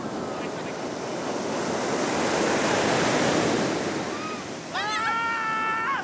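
Surf breaking on a pebble beach: a wave swells to its loudest about halfway through, then eases off. Near the end a person's voice calls out in one long held cry.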